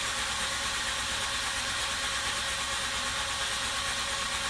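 A 2004 Mazda RX-8's starter cranks its two-rotor rotary engine with the throttle held to the floor in deflood mode, which cuts the fuel. The engine spins at an even rate without catching.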